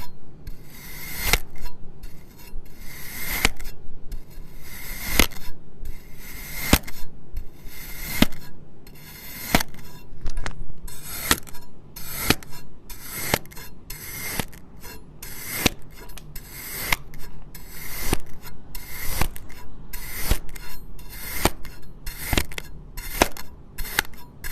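Kinetic sand being cut with a blade: repeated gritty, scraping strokes, about one a second, each with a sharp click.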